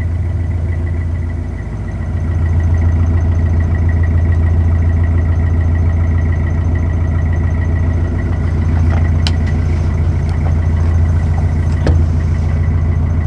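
Narrowboat's inboard diesel engine running steadily under way, a deep even drone with a faint steady whine above it; it grows a little louder about two seconds in.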